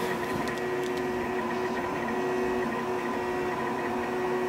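MAKEiT 3D printer running an ABS print: a steady mechanical whir with a constant whine from its cooling fans and stepper motors.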